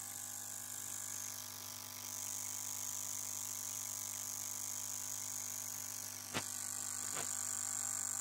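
Steady hum and hiss of a fuel injector flow test: the electric fuel pump is running while a Delphi 55 lb low-impedance injector fires rapid pulses of fuel into a glass measuring cup. There is a sharp click a little over six seconds in, and a fainter one about a second later.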